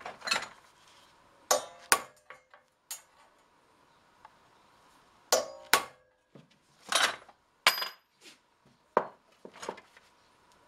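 Hammer tapping a metal punch against a steel barrel hoop to mark the spots for drilling: sharp metallic clinks, each with a brief ring, about ten taps at uneven intervals, some in quick pairs.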